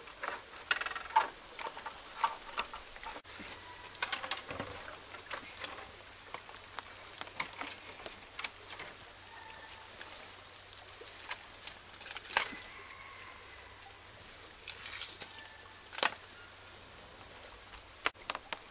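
Irregular clicks and knocks of bamboo and dry firewood being handled and laid on a small wood fire, with the fire crackling.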